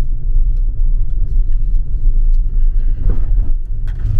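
Steady low road rumble inside a moving car.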